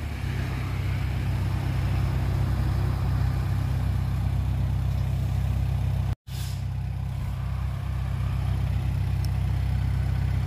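Heavy diesel engine running at a steady speed with a low drone: a Komatsu D20A bulldozer working, then, after a brief break about six seconds in, a loaded dump truck's diesel.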